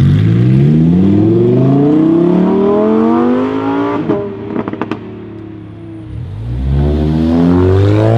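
Lamborghini Huracán Performante's naturally aspirated V10 accelerating hard, its pitch climbing steadily for about four seconds. It then lifts off with a short run of exhaust pops and crackles. After a brief lull, a Ford Mustang's engine comes in about six and a half seconds in, revving up quickly as it accelerates.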